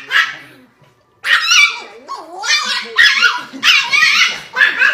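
Small dog barking in sharp, high-pitched yaps, once at the start and then in a quick string after a short pause about a second in. The dog is guarding its owner on the couch from a man leaning over her.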